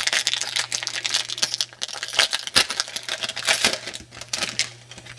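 Foil trading-card pack wrapper crinkling and tearing as it is opened by hand, a dense run of crackles that thins out near the end.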